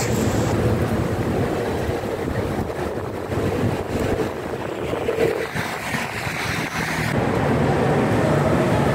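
Outdoor street ambience picked up by a phone microphone: steady traffic noise with wind buffeting the microphone.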